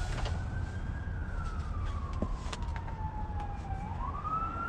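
A siren wailing: one tone that falls slowly over about three seconds, then climbs again sharply near the end, over a low steady rumble.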